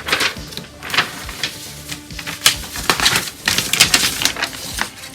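Irregular clicks, taps and rustles of hands handling the small plastic parts and paper of a plastic model kit.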